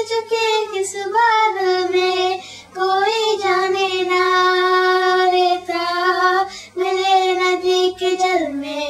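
A girl singing a Hindi song unaccompanied, in long held notes with short breaths between.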